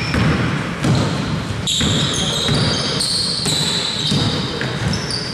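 A basketball bouncing on a gym court amid players' voices in the hall. From about two seconds in come several high, held squeaks of sneakers on the court.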